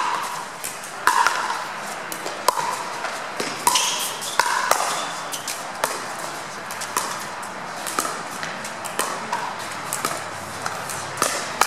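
Pickleball rally: paddles striking a hollow plastic pickleball, a sharp pop with a brief ring about once a second as the ball goes back and forth.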